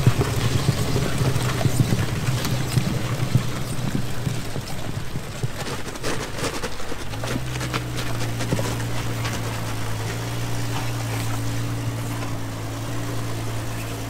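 Jeep Cherokee XJ driving, heard from low beside the front wheel: engine and tyre noise with many small knocks and rattles in the first half. About seven seconds in it settles into a steadier engine hum.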